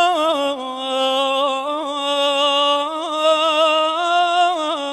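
A man sings solo and unaccompanied: a Kurdish devotional hymn praising the Prophet. He sings one long drawn-out phrase of wavering, ornamented notes. The pitch steps down about half a second in, climbs again in the middle and drops once more near the end.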